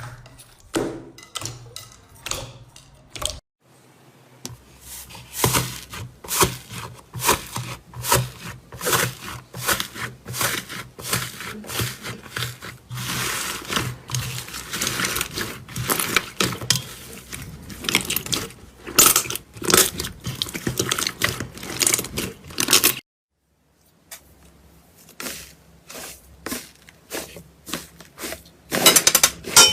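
Crunchy slime being squeezed, pressed and stretched by hand, giving off a dense run of crackling clicks and small pops. It breaks off briefly twice, once near the start and once for about a second after the twenty-second mark.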